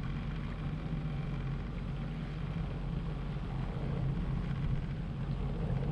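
Sea-Doo Fish Pro personal watercraft's engine running steadily at idle, a continuous low hum, with water washing around the hull.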